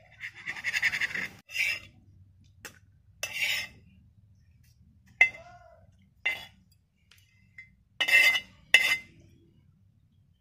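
A knife scraping and clinking on metal plates as fried pieces are cut and then slid from one plate onto a steel plate. There are several short scrapes, with a few sharp metal clinks, the loudest near the end.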